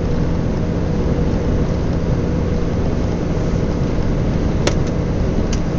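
Steady road and engine noise inside a moving vehicle's cab: a low rumble with a constant drone, and a single brief click about four and a half seconds in.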